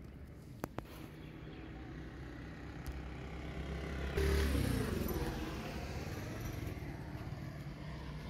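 A motor vehicle passing by: it grows louder, is loudest about four seconds in, then its pitch drops as it goes past. Two short clicks come near the start.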